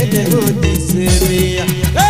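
Santali orchestra dance music: a steady beat of fast, crisp high percussion over deep bass hits, with a melody of notes that slide downward.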